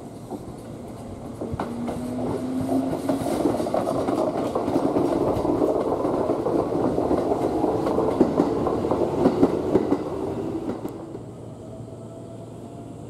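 Keikyu electric train moving past, wheels clicking and rattling over the rails, with a faint motor whine that rises in pitch about two seconds in. It grows louder over the first few seconds, holds for about six seconds and fades out.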